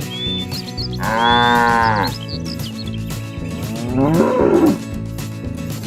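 Cattle mooing twice: one long moo about a second in that sags in pitch at its end, then a shorter, rougher moo near the middle.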